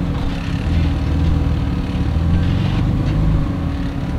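Jeep Wrangler JK's engine running at low revs as it crawls over rock, a steady deep drone.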